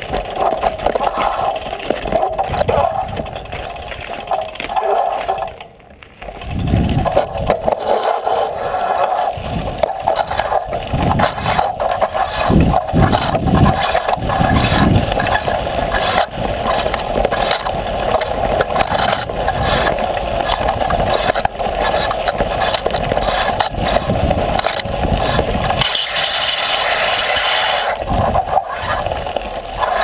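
Bicycle rolling over a rough gravel and rock trail, heard through a camera mounted on the bike: continuous tyre crunch and rattling of the frame and mount, dipping briefly about six seconds in.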